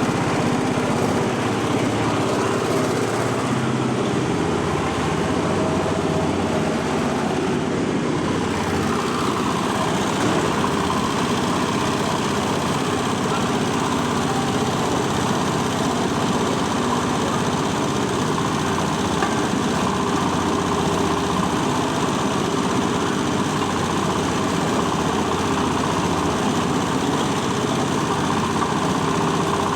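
Coconut husk peeling machine running steadily under engine power.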